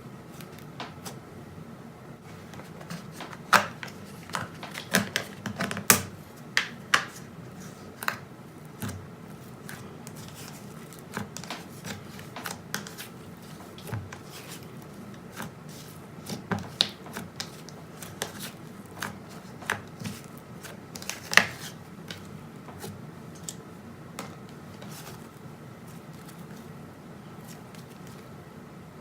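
Slime being handled, giving off irregular sharp clicks and pops, bunched in busy spells and thinning out near the end.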